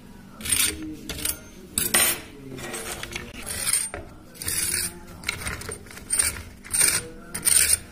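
A fork clinking and scraping on a plate as it presses into and breaks crisp fried gram-flour fafda, in about ten short crackly bursts.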